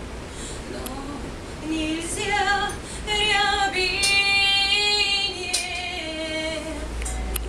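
A woman singing a slow Russian folk song unaccompanied, in long held notes; the voice is soft for the first couple of seconds and fuller from about three seconds in.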